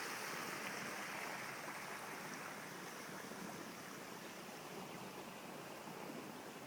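Overflow water from a rain-filled pond running steadily down a creek, growing slightly fainter.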